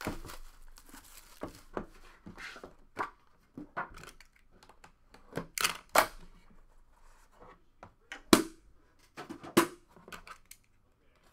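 Plastic shrink-wrap torn and crinkled off a sealed cardboard trading-card box. Then the cardboard box is slid apart and handled, with several sharp knocks and scrapes, the loudest about eight seconds in.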